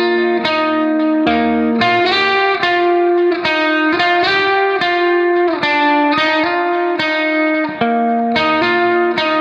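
Background music: a melody of plucked-string notes, a new note starting about twice a second.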